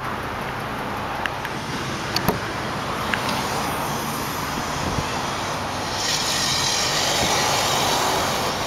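A 2009 Dodge Journey's 3.5 L V6 idling steadily, heard from behind at the exhaust, with a few light clicks and knocks in the first few seconds.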